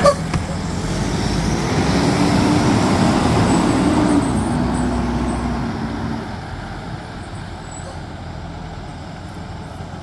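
School bus engine running as the bus pulls away and drives off, with a held engine tone from about two to six seconds in, then fading as the bus moves off. A brief click at the very start.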